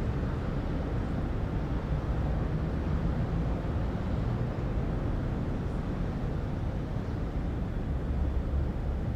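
City ambience heard from above the streets: a steady low rumble of traffic with no single event standing out.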